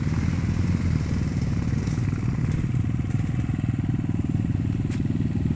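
Dirt bike engines running steadily as the trail motorcycles ride along a muddy track, a fast, even, low pulsing.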